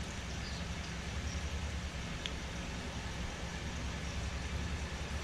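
Steady low rumble of passing car traffic, with one faint click about two seconds in.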